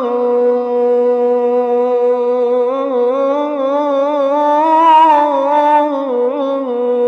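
A male munshid sings an unaccompanied Egyptian ibtihal, drawing out one long vowel of the word "ala" on a held note. About halfway through he ornaments it with wavering melisma that climbs a little, then settles back on the steady held note.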